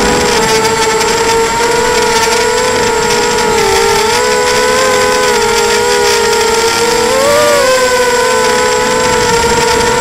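Wasp 280 FPV drone's brushless motors and propellers whining steadily over a hiss, heard from the onboard camera. The pitch wavers with small throttle changes and swoops up briefly about seven seconds in.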